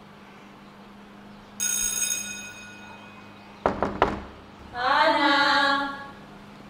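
An electric doorbell rings once and fades over about a second, followed a couple of seconds later by a few knocks on a wooden front door and a woman's voice calling "Ana!".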